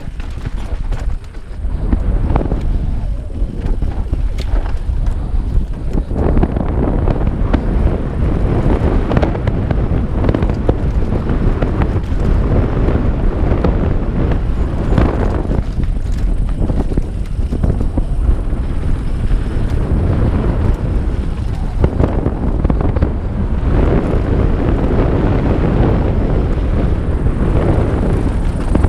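Wind rushing over the camera's microphone as a Santa Cruz Bronson mountain bike descends a rough trail at speed, with tyre noise and constant clatter and knocks from the bike over bumps.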